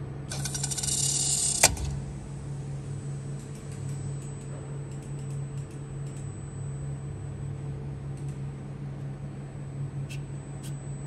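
Steady low electrical hum with a faint high whine from the LCD panel laser repair machine. Early on, a rapid buzzing burst lasts about a second and a half and ends in a sharp click.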